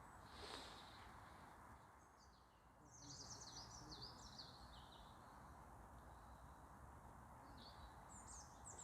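Faint songbird song: quick runs of high, sweeping chirps about three seconds in and again near the end, over a low, steady outdoor hiss.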